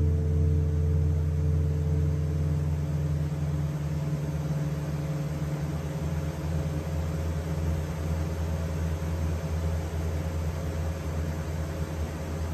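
A low, sustained musical drone of held notes ringing on and slowly dying away. A higher tone in it drops out about two and a half seconds in.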